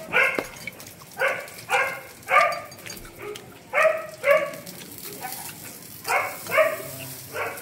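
Dog barking, about ten short barks in quick groups of two and three.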